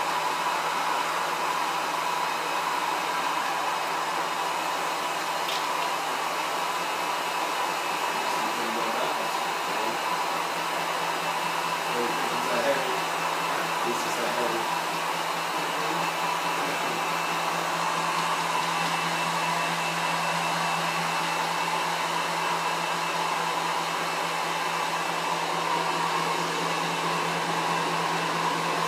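Steady whir of an electric motor on honey-extraction equipment, running at an even pitch with a constant hum. Faint murmured voices around the middle and a single light tap about thirteen seconds in.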